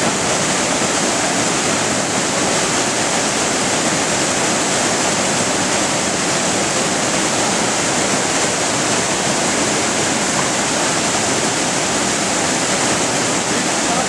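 Waterfall pouring into its plunge pool: a loud, steady rush of churning white water.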